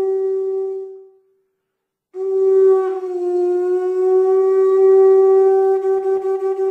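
A wind instrument blowing long held notes, one steady pitch with overtones. The first note fades out about a second in, and after a short silence a second long note starts, dips slightly in pitch, then holds, wavering near the end.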